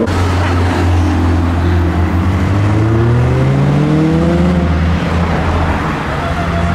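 Cars driving off one after another, passing close by, with a steady low engine rumble. About two and a half seconds in, one car accelerates, its engine note rising for about two seconds before it levels off.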